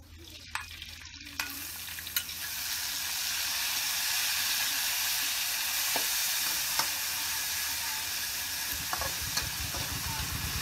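Food sizzling in hot oil in a metal wok over a wood fire, stirred with a metal spatula that clicks and scrapes against the pan. The sizzle swells about two seconds in, then runs steadily.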